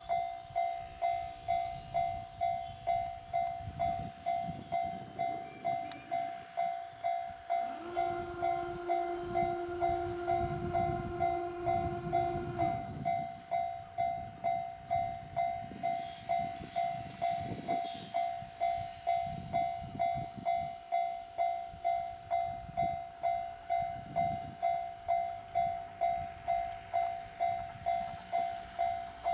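Japanese level-crossing warning bell ringing in steady strokes, just under two a second. About eight seconds in, a train horn sounds one long, steady note lasting about five seconds. Then a JR Hachikō Line diesel train rumbles over the crossing, its wheels clattering over the rail joints.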